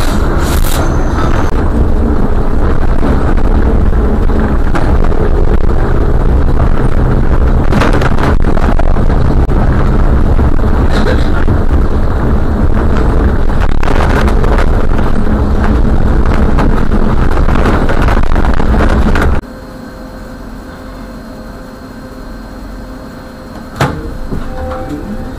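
Road and drive noise from a moving car, heavy and low and loud, heard from inside a dashcam vehicle. About nineteen seconds in it cuts abruptly to a much quieter idle with a faint steady hum, and there is a single sharp click near the end.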